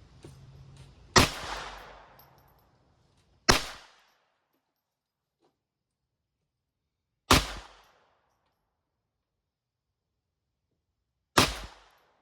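Smith & Wesson 422 .22 LR semi-automatic pistol fired four times in slow, aimed fire, with sharp cracks two to four seconds apart.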